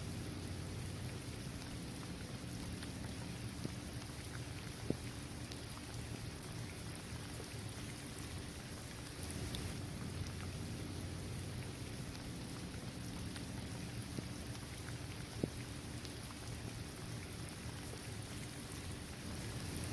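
Steady rain falling on a basketball court, trees and grass, a continuous even patter. Two sharper ticks stand out, about five seconds in and near the three-quarter mark.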